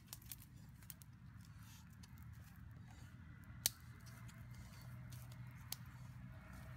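Small open fire of dry twigs crackling faintly, with scattered pops and snaps as sticks are pushed into it. One sharp snap stands out a little past halfway, and a smaller one comes later, over a low steady background rumble.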